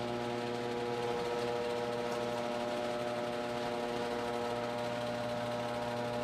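Electric garage door opener running steadily with an even motor hum as it drives the door up.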